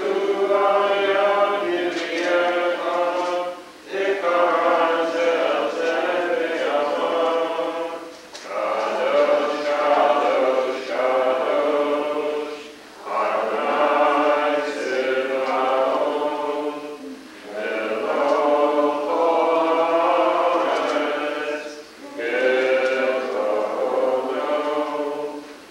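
Congregation singing a prayer together in the sanctuary, in phrases about four seconds long with short pauses for breath between them.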